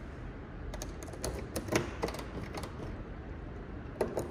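Key being turned and worked in a Toyota Supra's trunk lock: a run of small, quick clicks and rattles, then a couple of louder clacks near the end. The key is not releasing the latch enough to pop the trunk lid.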